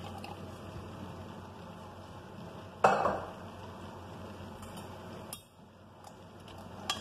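Kitchen utensils and cookware clinking and knocking, with one sharp, loud clank about three seconds in.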